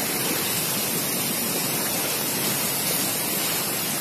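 Steady rushing of cyclone storm-surge seawater flooding inland over the ground.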